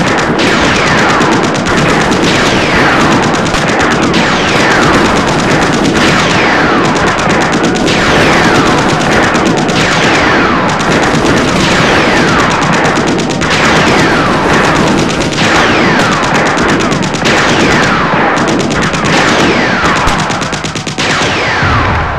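Battle sound effects: continuous rapid machine-gun fire with many overlapping high whistles falling in pitch, fading out near the end.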